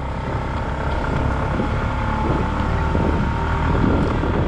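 Motorcycle engine running under load as the bike climbs a rough, muddy dirt trail, heard from the bike itself, with some wind noise on the microphone.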